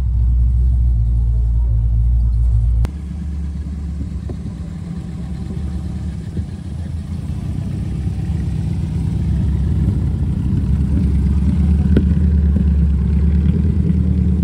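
A steady low rumble stops abruptly about three seconds in. It gives way to the engine of a red Triumph TR7 convertible running and pulling away slowly, growing louder toward the end.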